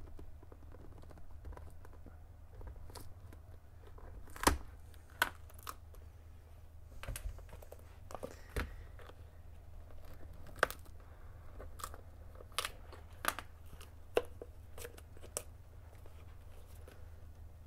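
Handling noise from a leather high-heeled shoe and its detached heel on a wooden worktable: scattered sharp clicks and knocks, about a dozen, the loudest about four and a half seconds in and again about ten and a half seconds in, over a faint steady low hum.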